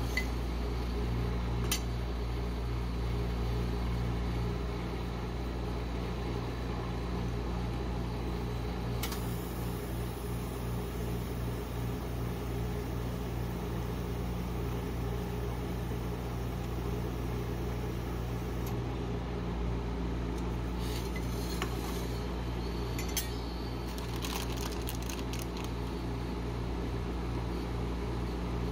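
Steady low hum of a rolled ice cream machine's refrigeration unit cooling its steel plate, with a few light clicks and taps as metal spatulas and chocolate-covered pretzels are set down on the frozen plate. The taps come in a cluster about three-quarters of the way through.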